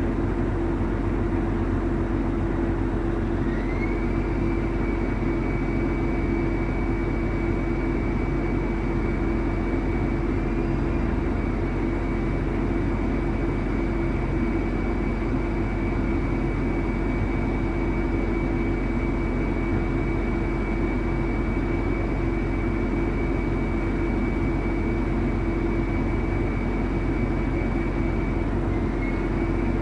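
Heavy diesel earthmoving equipment running steadily, with a strong low hum. A thin high whine comes in a few seconds in and holds until near the end.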